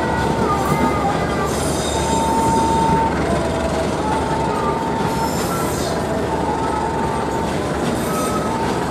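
Passenger train coaches rolling past on the rails: a steady, dense rumble of wheels on track, with a high-pitched squeal that comes and goes every second or two.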